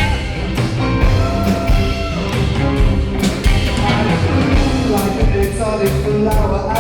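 Live band music with drums keeping a regular beat under held instrumental lines, a short stretch between the song's sung lines.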